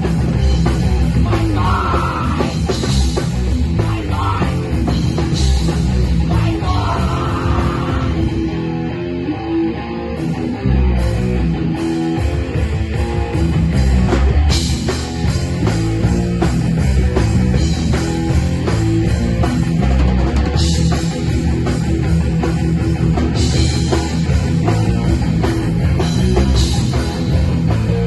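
Rock band playing a loud heavy rock piece with electric guitar and drum kit; the low end and drums drop back briefly about nine seconds in, then the full band comes back in.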